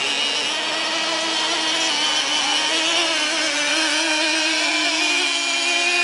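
Radio-controlled model outboard racing boats running on the water, their small engines giving a steady high-pitched whine that wavers slightly in pitch as they circle before the start.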